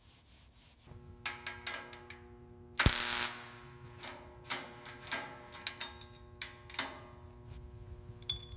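Hand tools clicking and knocking on the car's metal parts, irregular sharp clicks about every half second, with a louder noisy burst about three seconds in. A steady low hum runs underneath from about a second in.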